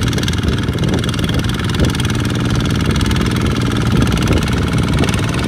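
Two-wheel walking tractor's single-cylinder diesel engine running steadily under load as it drags a trailer of rice sacks through deep mud.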